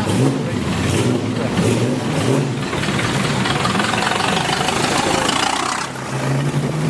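Racing car engines running at close range, the revs rising and falling unevenly over the first couple of seconds, then settling to a steadier drone about six seconds in.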